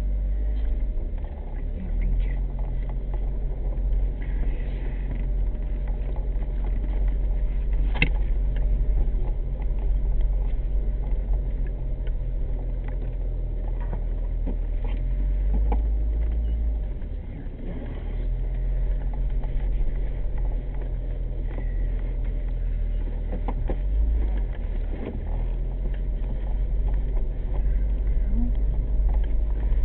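1998 Corvette C5's 5.7-litre LS1 V8 running under way with steady road rumble. The engine note drops away about halfway through, then picks up again, and a few sharp knocks from the road break in, one louder about a quarter of the way in.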